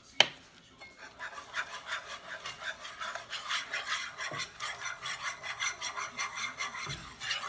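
A wire whisk stirring a thick sauce in a skillet, scraping against the pan in a quick, even rhythm of about three or four strokes a second. A sharp click comes just at the start.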